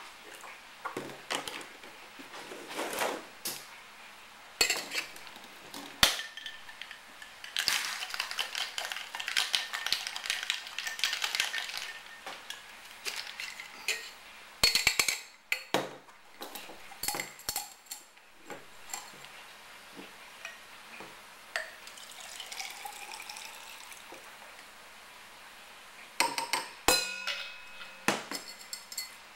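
Cocktail being mixed: lemonade pouring over ice in a glass, sharp clinks of metal and glass, then a few seconds of continuous rattling about eight seconds in, ice shaken in a stainless-steel shaker. The drink is then poured out of the shaker tin, with more clinks near the end.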